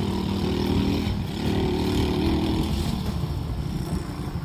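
Small ATV engine running and revving, its pitch dipping about a second in, climbing again, then falling away near the end.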